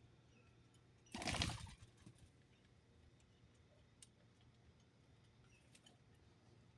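A bird's wings flapping in a short flurry about a second in, otherwise near quiet.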